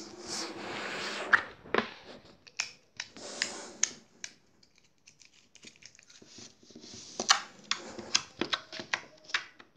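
Slime being squeezed and stretched by hand, making irregular sticky clicks and pops, sparser in the middle and busier near the end.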